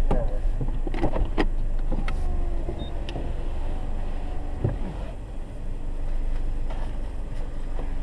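Car idling, heard from inside the cabin as a steady low rumble, with a few short knocks and clicks in the first couple of seconds and another a little before five seconds in.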